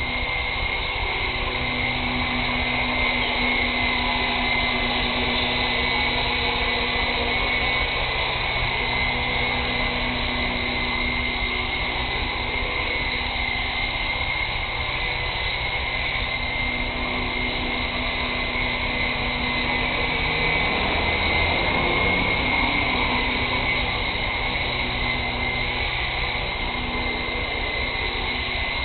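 Radio-controlled Twister Bell medevac helicopter flying, its motor and rotor blades making a steady whine, with wind rumbling on the microphone. The pitch dips and shifts briefly about two-thirds of the way through, then settles again.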